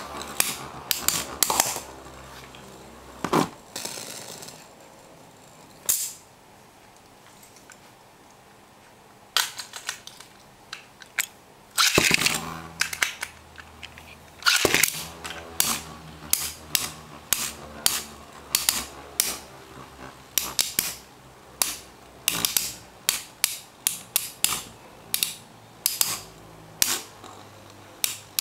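Two metal Beyblade tops, Big Bang Pegasis F:D and Flame Sagittario C145S, spinning in a plastic stadium with a faint whir, clacking sharply against each other and the stadium walls. After a sparse spell of a few seconds the hits come several times a second from about twelve seconds in.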